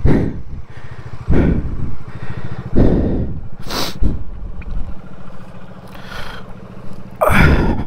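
Motorcycle engine idling steadily, with several brief loud bursts of noise over it, the loudest near the end.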